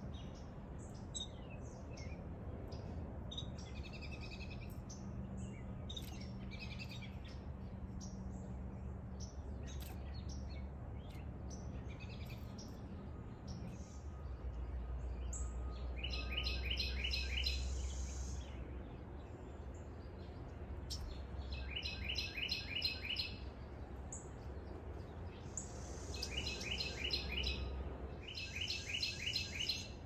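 Backyard songbirds chirping, then from about halfway one bird repeating a fast trilled song of about two seconds, four times, over a steady low background rumble.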